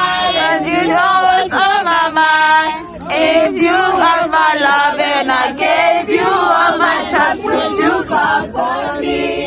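A group of people singing together loudly, many voices overlapping at once, with a brief lull about three seconds in.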